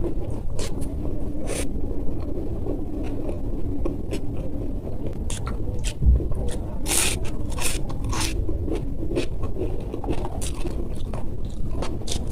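Masala dosa being bitten and chewed close to the microphone: irregular crisp crunches and mouth clicks over a steady low rumble.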